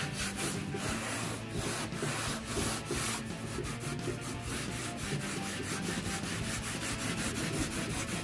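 Green abrasive bristle pad scrubbed back and forth over a wet, spray-painted truck dash panel with soapy water, in quick, even strokes a few times a second. The scuffing dulls the glossy paint down to a flat, matte finish.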